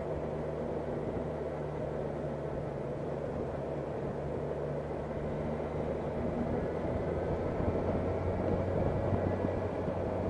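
Motorcycle engine running steadily at low road speed, heard from the rider's position with wind and road noise. It gets a little louder in the last few seconds as the bike speeds up slightly.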